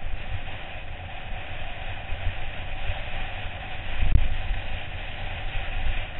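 Wind buffeting a helmet-mounted camera's microphone mixed with the rattle and rumble of a mountain bike riding down a rough dirt and rock trail, with a heavier jolt about four seconds in.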